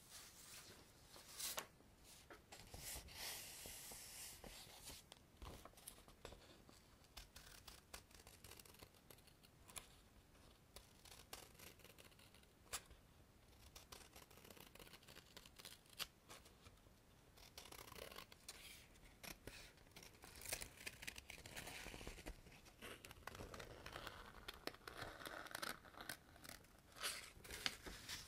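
Faint scratching and crinkling of small objects on a desk, recorded binaurally, with scattered sharp clicks between stretches of rustling.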